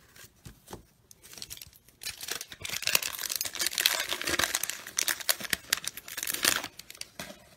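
A baseball card pack being torn open, its wrapper crinkling and tearing for about five seconds from roughly two seconds in, after a few soft card clicks.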